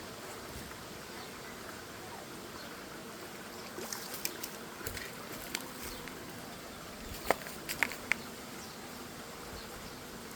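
Steady outdoor background hiss with a faint buzzing, broken by a few short clicks, the sharpest about seven to eight seconds in.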